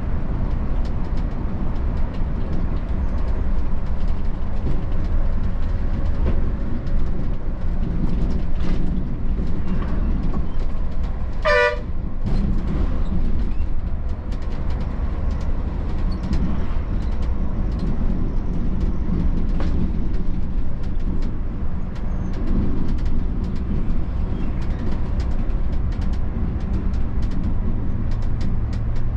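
Volvo B11R coach's six-cylinder diesel engine and road noise running steadily on the move. A short horn toot sounds about a third of the way in.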